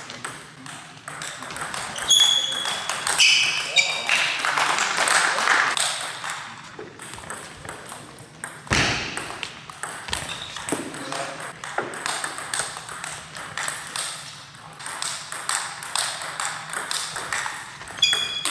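Table tennis rally: the celluloid ball clicking back and forth off bats and table at an irregular pace, with a heavier knock about halfway through and a few short high squeaks a couple of seconds in and near the end. Voices carry in the background, with a hall's reverberation.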